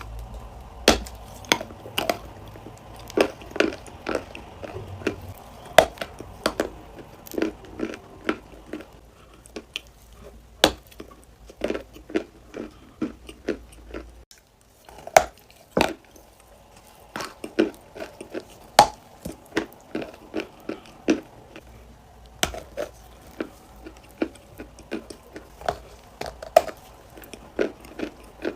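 A person biting and chewing crunchy clay close to the microphone: many sharp, irregular crunches, with a short pause about halfway through.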